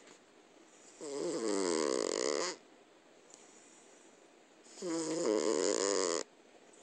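Domestic cat snoring in deep sleep: two long snores with a wavering pitch, each about a second and a half, a little over three seconds apart. A brief click right at the start.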